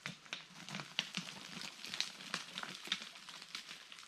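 Footsteps crunching through brush and dry twigs: a run of irregular crackles and snaps with soft thuds underneath.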